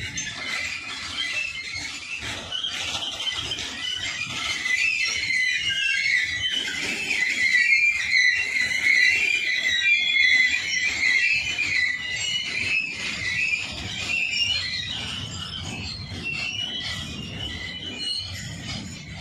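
Steel wagon wheels of a passing BCNHL covered-wagon freight train squealing against the rails in a continuous, wavering high-pitched squeal, loudest about halfway through, over the low rumble of the rolling wagons.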